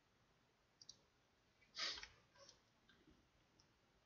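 A few faint computer mouse clicks, with one louder, short noisy sound about two seconds in.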